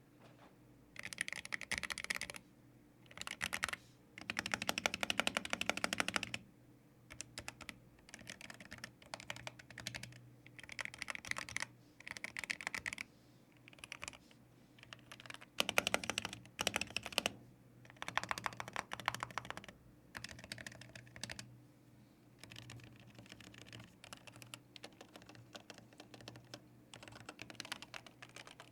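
Typing on a DrunkDeer A75 magnetic-switch keyboard fitted with newly installed aftermarket keycaps, as a test of its typing sound. Runs of rapid key clicks come in bursts of one to two seconds, with short pauses between them.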